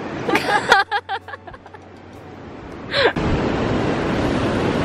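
A short burst of laughter and breathy vocal sounds, then wind buffeting the microphone with a steady low rumble for the last couple of seconds.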